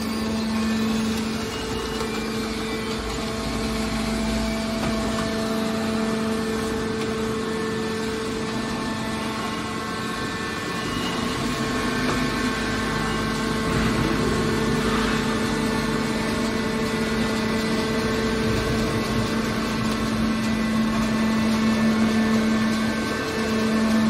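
Industrial machinery running with a steady, even hum.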